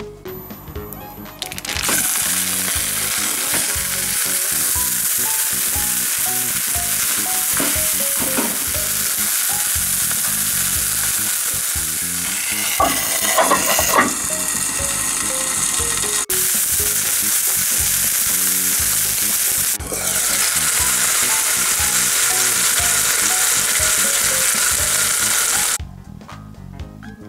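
A large block of meat frying in a pan: a loud, steady sizzle that starts about two seconds in and stops abruptly near the end. About halfway through, a pan lid clatters as it is set onto the pan.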